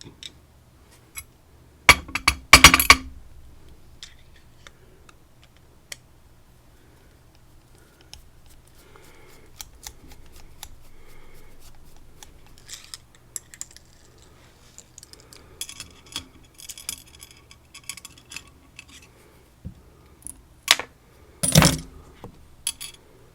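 Small metal parts of a Stanley padlock clinking and rattling as the lock is taken apart by hand, with a loud clatter about two seconds in and another near the end.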